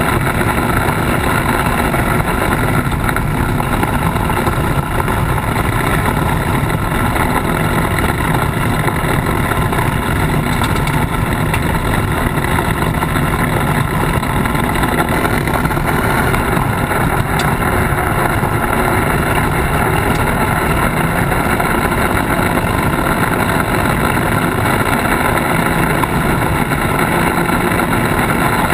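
Polaris RZR side-by-side driving at a steady pace over a dirt and gravel track: a loud, unbroken engine drone mixed with tyre and road noise, heard close up from the front bumper.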